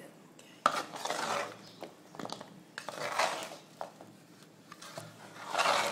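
Spoon and spatula scraping and clinking against a metal pan while tossing syrup-coated shakar paray cubes, in three bouts of scraping with a sharp clink about two-thirds of a second in.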